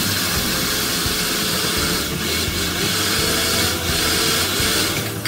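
Electric blender running steadily, blending avocado shake: a constant motor hum under a whirring hiss. It cuts off abruptly at the very end.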